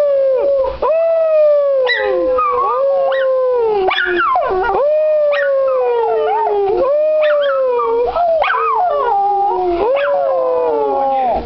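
Schnauzer howling in a string of long notes, each one jumping up and then sliding slowly down in pitch, with short yelping breaks between them.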